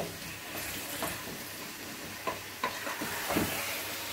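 Wooden spoon stirring a thick spinach sauce in a stainless-steel pot, with a few short scrapes and knocks against the pot, over the steady sizzle of the sauce cooking.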